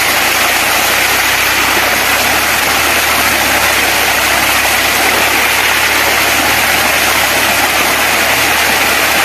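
Tubewell water gushing under strong pressure from an outlet pipe into a concrete tank, splashing and churning over a person sitting in it: a loud, steady rush with a low, even hum beneath.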